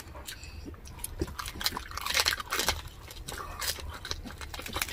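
Close-miked eating of crispy fried pork: crackling crunches of the crisp skin and wet chewing, with a dense run of crackles about two seconds in.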